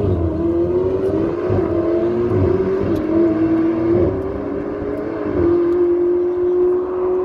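Ferrari engine accelerating hard with a loud, high engine note. The pitch dips briefly and climbs again several times as the car shifts up through the gears.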